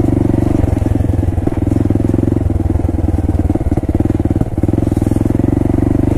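Honda Grom's single-cylinder four-stroke engine running steadily on the move along a dirt trail. The engine note dips briefly twice, about one and a half seconds in and again about four and a half seconds in.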